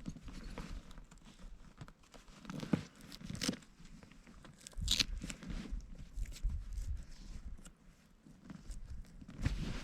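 Canvas tent fabric and its Velcro strips being handled: rustling and scraping, with short ripping sounds, the sharpest about five seconds in.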